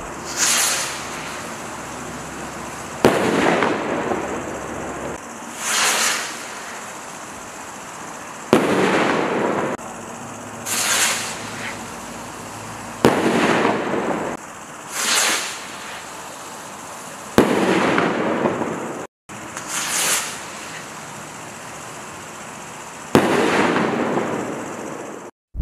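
Maverick firework rockets going off one after another: each launches with a short rushing whoosh and bursts about two and a half seconds later with a sharp bang that dies away over a couple of seconds, five times in all.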